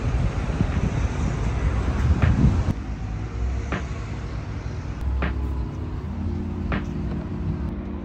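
Low rumbling noise, like traffic, for the first few seconds, then background music with sustained chords and a soft beat about every second and a half.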